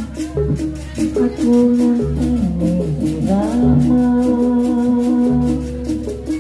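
Jaranan (kuda lumping) ensemble music: a melody line with long held notes over a fast, steady percussion beat and an intermittent deep bass.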